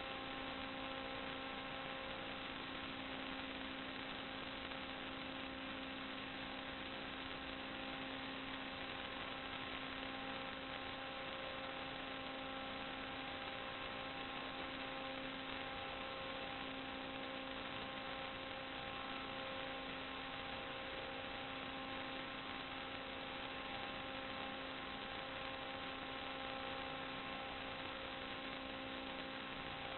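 Steady electronic hum over a constant hiss, unchanging throughout, typical of the audio channel of an analog FPV video link recorded at the receiver rather than the quadcopter's motors.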